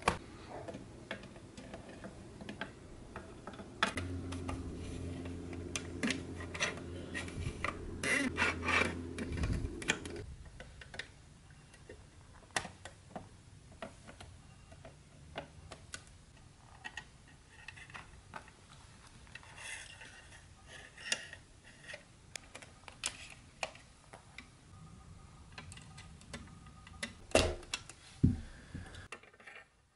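Light clicks, taps and knocks of pressed-steel Tonka toy parts being handled and fitted together on a tabletop, with a couple of sharper knocks near the end. A low steady hum runs under the first third and then stops.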